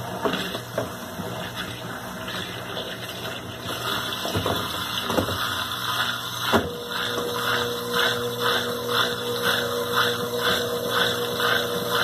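Consul Maré Super top-loading washing machine draining, its pump running and water rushing out, with a few knocks. About six and a half seconds in a steady hum sets in, with a rhythmic swishing about twice a second.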